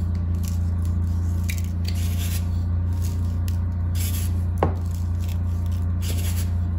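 Breadcrumbs shaken from a cardboard canister onto chicken thighs in a foil pan: short, hissy shakes every second or two, with one small click about two-thirds of the way through, over a steady low hum.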